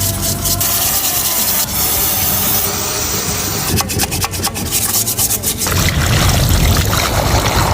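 Rubbing and scraping from hand work on gearbox parts, with scattered sharp clicks. A louder rushing noise starts near the end.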